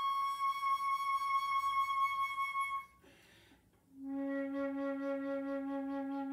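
Solo concert flute holding a high note with vibrato that fades out just before the three-second mark. After a brief pause, a long, steady low note begins about four seconds in.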